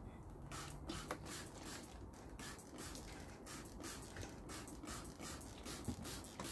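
Trigger spray bottle of wood oil pumped over and over, each squeeze a short hiss, about three a second.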